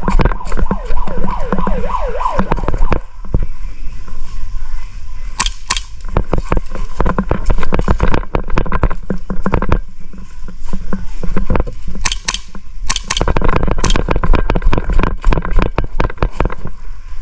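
Airsoft guns firing: many sharp clicks and cracks, in thicker flurries near the middle and again later, over a steady low rumble. A wavering pitched sound is heard over the first couple of seconds.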